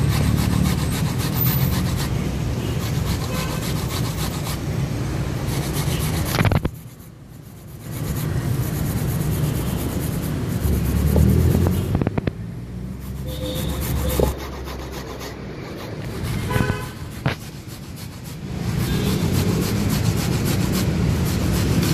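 A knife blade scraping and stirring grated coconut against a stainless-steel bowl, a repeated rubbing, over a steady low rumble.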